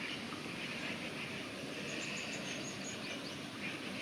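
Steady outdoor background noise with faint bird chirps: a quick run of high chirps about two seconds in and a few faint rising chirps soon after.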